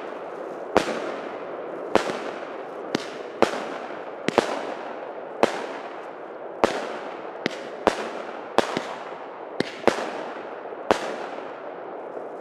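Šašek consumer firework firing aerial shots: about a dozen sharp bangs at an uneven pace of roughly one a second, each burst trailing off in a fading crackling hiss of golden sparks.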